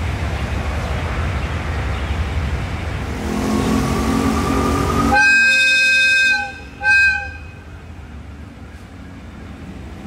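Hitachi 8FA-36C diesel-electric locomotive approaching with its engine running and its note rising, then sounding its horn: a blast of about a second followed by a short second blast.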